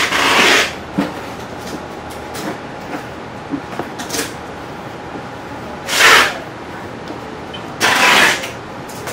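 Bread dough being kneaded by hand on a wooden tabletop: three short rough rushes as the dough is pushed and dragged across the wood, at the start, about six seconds in and about eight seconds in, with a few light taps between them over a steady background hum.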